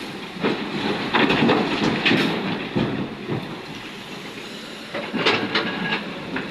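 Wet stone clattering and rattling as an excavator loads it into a steel tipper truck body, in two bouts of dense rattling, the first longer, over a steady engine hum.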